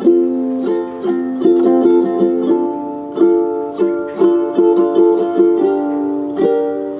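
Gentle instrumental background music led by a plucked string instrument, notes picked one after another over held chords.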